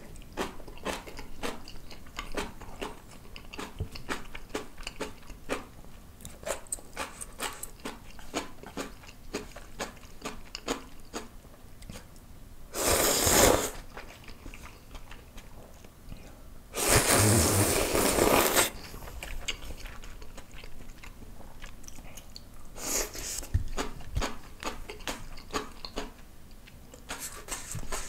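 Close-miked eating: steady chewing with many small crunches and clicks of spicy kimchi and ramen, broken by loud slurps of Shin Ramyun dry noodles, a short one about 13 seconds in and a longer one about 17 seconds in.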